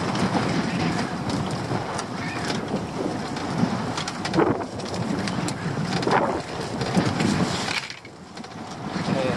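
Wind buffeting the microphone over water lapping at a small open boat, with rustling and knocking from a crab pot's netting and frame as a crab is taken out of it. The noise drops away briefly about eight seconds in.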